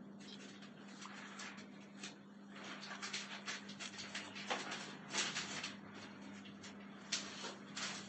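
Faint handling noises close to the microphone: a run of short, scratchy clicks and rustles, busier from about the middle on, over a steady low hum.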